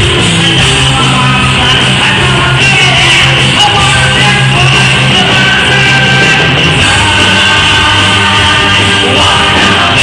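Live rock band playing loud, steady rock music.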